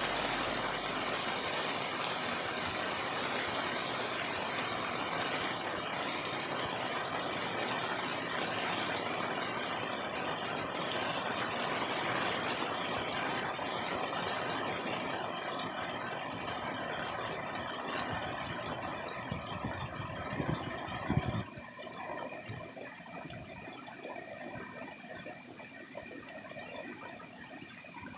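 Steady rain falling, an even hiss that drops suddenly to a lighter patter about twenty-one seconds in. A few dull thumps sound just before the drop.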